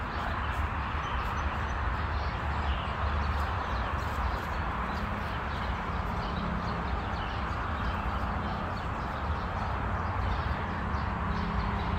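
Steady outdoor background noise, a hiss with a low rumble underneath, with faint small-bird chirps scattered through it.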